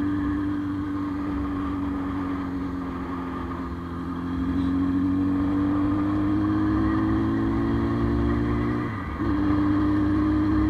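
Motorcycle engine running steadily on the road, heard from on the bike. Its note eases down slightly and climbs back, then dips briefly and picks up again near the end.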